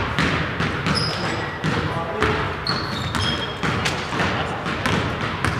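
A basketball bouncing on a hardwood gym floor several times at an uneven pace, with short sneaker squeaks and players' chatter echoing in the hall.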